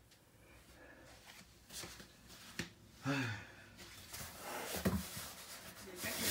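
Cardboard cases of bath tissue being handled and shifted: a few faint taps, a short bump about three seconds in, then scraping, rustling cardboard with soft thumps building over the last couple of seconds.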